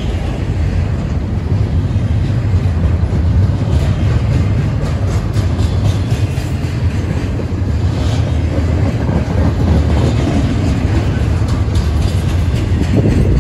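Freight train rolling past: a loud, steady low rumble of wheels on rail, with clicks as the wheels cross the rail joints.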